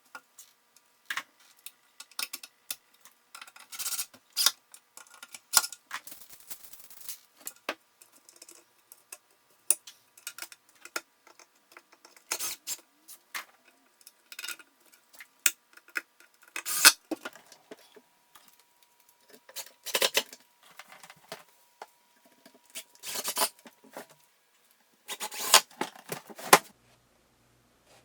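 Hardware and tools being handled: an irregular run of sharp clicks, knocks and small clatters, with quieter rustling between them and a few louder clusters of knocks in the second half.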